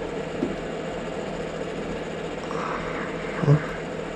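Steady machine hum, with a brief low sound about three and a half seconds in.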